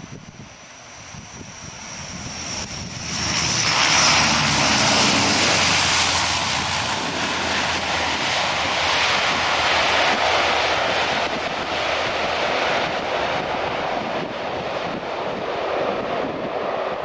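Antonov An-12's four Ivchenko AI-20 turboprop engines running as it rolls along a wet runway past the microphone. A high whine heard at first gives way as the sound swells sharply about three seconds in and then stays loud.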